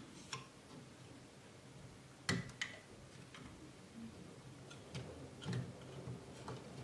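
A few scattered small clicks and taps as plastic cable connectors are worked loose from the circuit board of a Bambu Lab P1S printhead. The loudest click comes about two seconds in.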